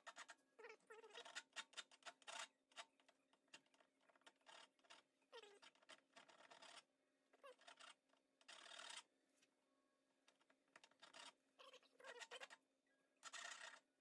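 Hand file scraping across the edge of a freshly threaded part held in the lathe, in short uneven strokes, lightly breaking the sharp edge. Several brief squeaks that fall in pitch come among the strokes.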